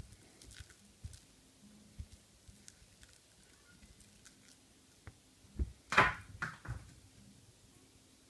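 Faint scattered taps and rustles, then a short cluster of louder thumps and scuffs about six seconds in.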